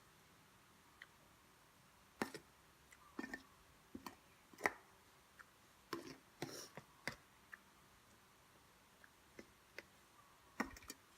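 Faint, irregular clicks and smacks of someone chewing and eating close to the microphone, with a burst of them in the middle.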